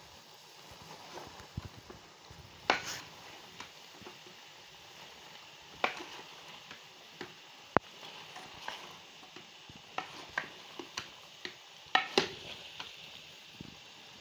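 A ladle stirring cauliflower, peas and chicken pieces in a metal pot: a run of scrapes and soft clicks, with sharper knocks of the ladle against the pot now and then.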